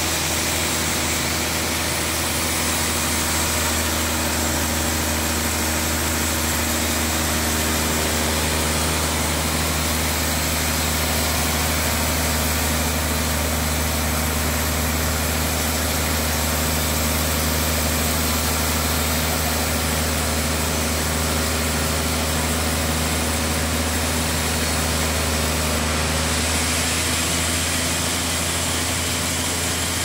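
Large sawmill log bandsaw running steadily, an even low mechanical hum that holds without change.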